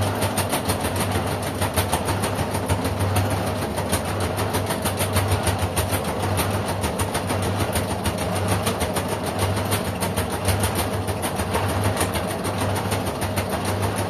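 LG front-loading washing machine running its wash, the drum turning the laundry: a steady motor hum with a fast, even ticking over it.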